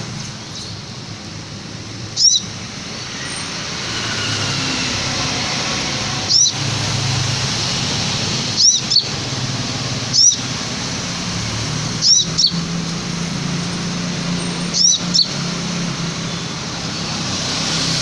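Caged sunbird giving short, sharp, high chirps every couple of seconds, some in quick pairs, over steady traffic noise.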